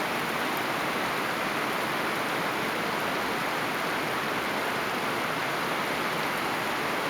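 Rain falling steadily, an even hiss that holds without letting up.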